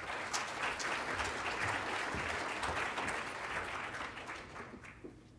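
Audience applauding at the end of a talk: dense clapping that holds steady for about four seconds, then dies away near the end.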